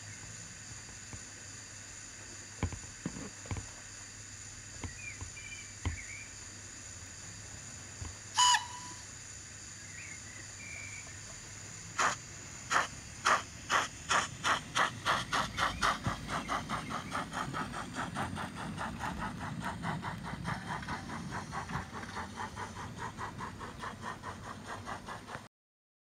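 Sound-fitted OO gauge model steam tank locomotive: a steady steam hiss with a few clanks, a short whistle about eight seconds in, then exhaust chuffs that begin slowly about halfway through and quicken to several a second as it pulls away. The sound cuts off suddenly just before the end.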